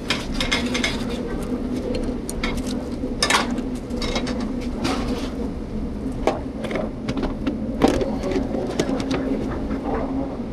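Commercial restaurant kitchen at work: a steady mechanical hum under frequent short clatters and clinks of pans, utensils and plates.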